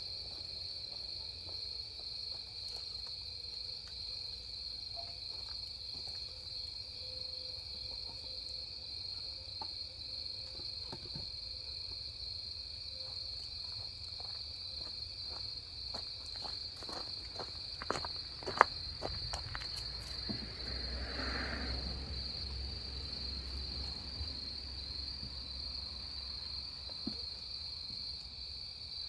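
Night chorus of grass insects such as crickets: a steady, high-pitched trill. It is broken by scattered small clicks, a sharp knock about two-thirds of the way through, and brief rustling just after.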